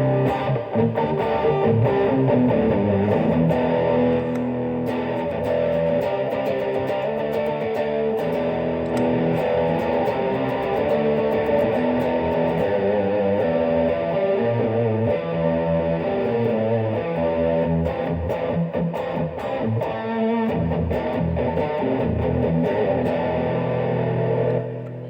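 Electric guitar played through a Boss Dual Overdrive pedal, giving an overdriven tone, playing a run of changing notes and chords. It ends on a held chord that dies away near the end.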